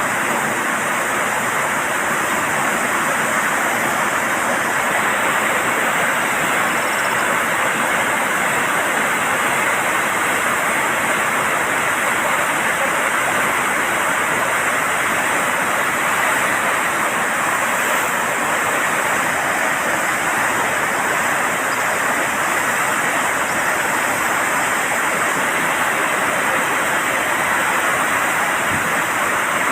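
Water rushing steadily through the open gates of a dam, one continuous even sound with no change in level.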